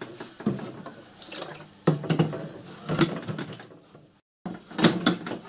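A few sharp clunks and knocks of handling: a soldered copper-pipe bracket is slotted into the riding car's metal uprights and a plastic water tank is set onto it.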